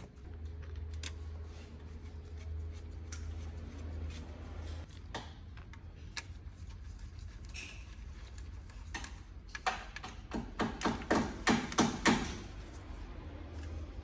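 Metal timing chain clinking and clicking against its sprockets and plastic guides as it is fitted by hand, with a quick run of about ten sharp metallic clicks a little after halfway.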